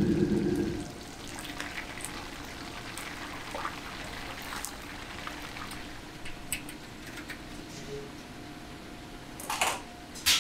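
Oyster fritters deep-frying in hot oil: a loud sizzle for the first second, then a quieter steady crackle and spatter as they are lifted out with a metal skimmer. A couple of sharp knocks near the end.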